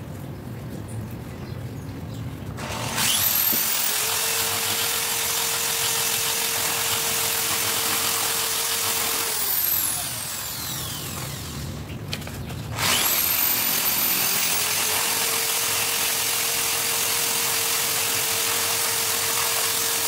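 An electric power tool runs twice, about seven seconds each time: the motor whines up to speed, runs steadily, and the first run winds down about ten seconds in.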